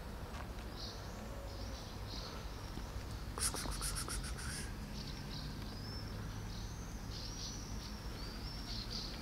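Small birds chirping, with short high calls repeating, over a low steady background hum. About three and a half seconds in, a rapid high rattling sound lasts about a second.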